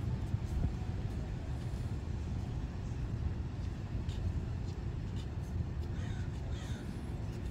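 Steady low outdoor rumble, with a few short bird calls about four seconds in and again near the end.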